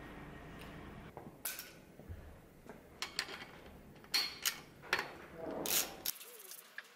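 Metal clicks and clinks of hands fitting parts at a steel bicycle's crankset and bottom bracket, a handful of sharp knocks spread unevenly through the second half.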